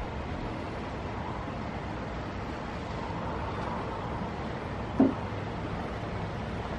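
Steady rushing background noise, with one short, louder sound about five seconds in.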